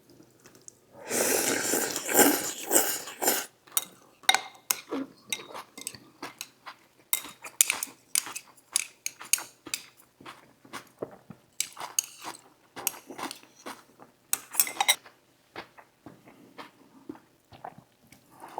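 Eating utensils clinking, knocking and scraping against dishes during a meal: a longer scraping rustle in the first few seconds, then a run of sharp separate clinks.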